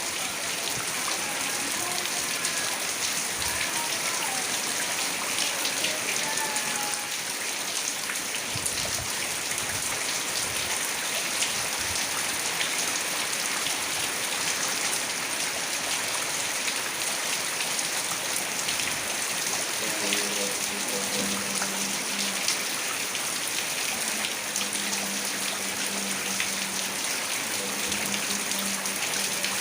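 Heavy rain falling steadily and drumming on surfaces.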